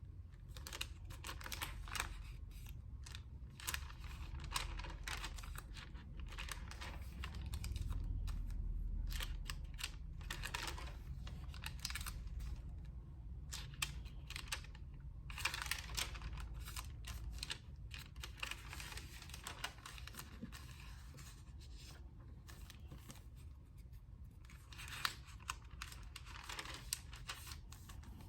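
Thin onion skin paper pages of a journal being turned and handled: crisp rustling and crinkling in irregular bursts with short pauses between, over a low steady hum.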